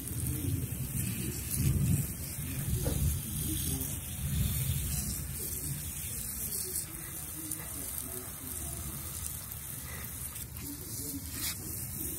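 Water hissing steadily from a watering wand's shower nozzle as it sprays onto potted succulents. Low-pitched noise underneath is loudest in the first few seconds.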